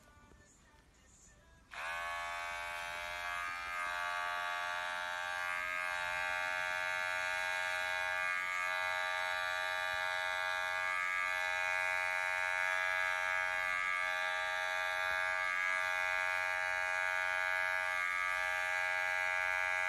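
Electric pet hair clipper switched on about two seconds in, then running with a steady high buzz that wavers briefly every couple of seconds as it is worked through a cat's fur.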